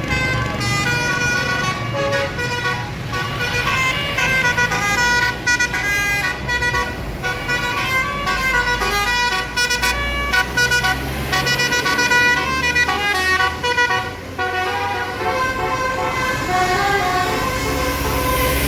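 A bus's basuri telolet horn playing a melody, a run of quick, changing horn notes, over the low rumble of the bus's engine.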